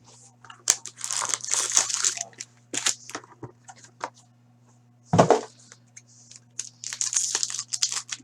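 Sports card pack wrappers being torn open and crinkled in bursts, with one sharp knock about five seconds in.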